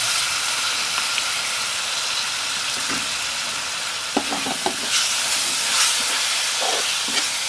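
Thick shrimp-paste relish sizzling steadily as it fries in a pan and is stirred with a spatula, with a few short spatula scrapes about two-thirds of the way through.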